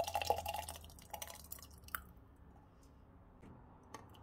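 Thick tomato and pepper sauce poured from a metal ladle into a glass jar, plopping and splattering wetly for about two seconds. Then comes a quieter stretch with a few faint clicks near the end.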